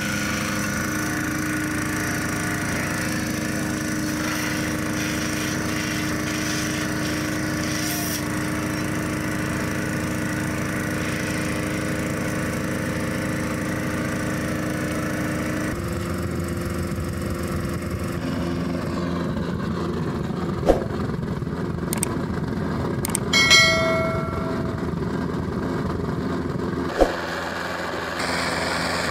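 A small engine running steadily, its tone changing about halfway through. In the second half come a few sharp metallic knocks and one short ringing clang.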